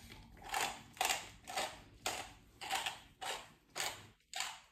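Hand-twisted pepper mill grinding peppercorns: about eight short grinding strokes, roughly two a second.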